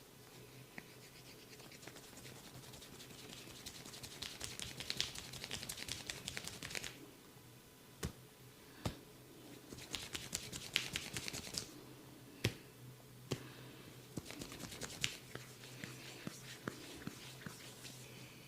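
Close-up scratchy rubbing of a barber's fingers on hair and skin during a head and ear massage, in two longer bursts and a few shorter ones, with several sharp clicks in between.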